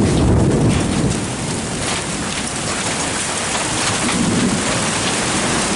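Hailstones and rain pelting down hard and bouncing off a roof, a dense, steady hiss and clatter. It swells in the first second and again about four and a half seconds in.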